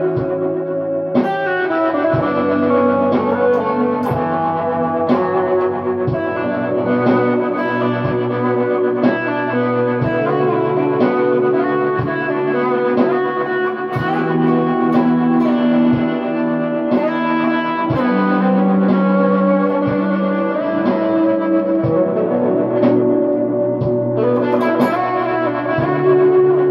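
Squier Telecaster electric guitar improvising slow ambient lines through Old Blood Noise Endeavors Dark Star and Procession reverb pedals and an ARP-87 delay into a clean Boss Katana amp. Single picked notes every second or so ring into a sustained wash of overlapping reverb and delay tails.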